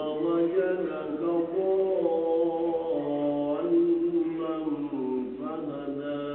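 A man's voice reciting the Quran aloud in a melodic chant, holding long notes and gliding between them, with a brief pause for breath near the end: the imam's recitation leading congregational prayer.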